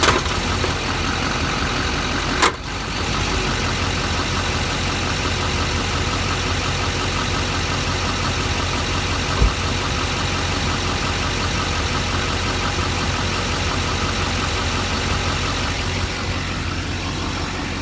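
LBZ Duramax 6.6-litre V8 turbodiesel idling steadily. Sharp knocks come at the start and about two and a half seconds in, and a deep thump about nine and a half seconds in: the distinct clunk of the newly built Allison 1000 transmission shifting between park and reverse, which the owner asks may not be normal.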